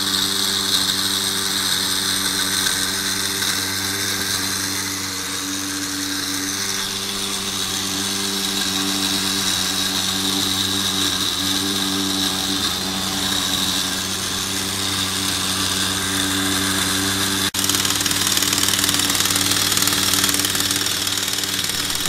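Small electric motors of a scale-model grain dryer running steadily, driving its augers and elevator: a hum with a high hiss. It cuts out for an instant about two-thirds of the way through.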